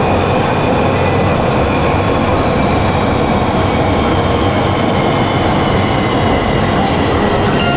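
Steady, loud running noise of a Nanchang Metro Line 2 train under way, heard from inside the passenger car: wheels on rail with a low hum.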